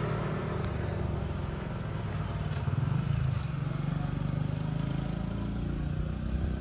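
A motor vehicle's engine running with a low, steady rumble. A thin, high, steady whine comes in about four seconds in.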